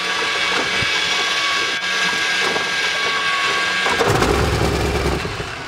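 Wright R-3350 Duplex-Cyclone 18-cylinder radial aircraft engine being cranked for a start, a steady whine with several held tones. About four seconds in, a low rumble comes in as the engine begins to fire.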